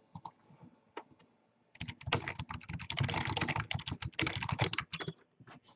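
Typing on a computer keyboard: a few scattered keystrokes, then a fast run of typing lasting about three seconds, then a few more keystrokes near the end.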